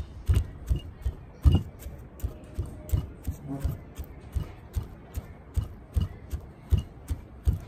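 Stone pestle pounding garlic in a heavy stone mortar: a steady run of dull thuds, about three a second.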